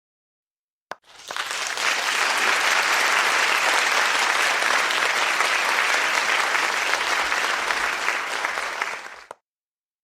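Recorded crowd applause played as a sound effect: dense, even clapping that starts abruptly about a second in, runs for about eight seconds and cuts off sharply.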